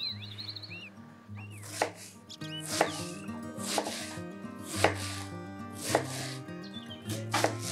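Kitchen knife chopping food on a cutting board: slow, single cuts, about six strikes roughly a second apart.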